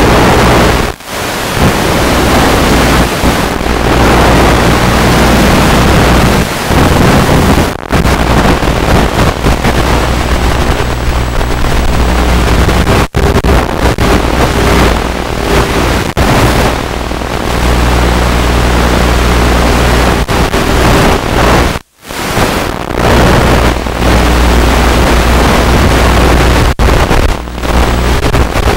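Loud steady hiss and rushing noise picked up through the small analog FPV camera link on a UMX Radian glider in flight: radio static and wind, with a faint low hum underneath. The noise drops out briefly several times, most deeply a little over twenty seconds in.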